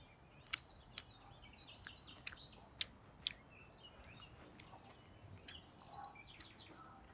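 Mouth sounds of someone eating glass noodles: a string of sharp, wet clicks and smacks as she chews, with faint bird chirps behind.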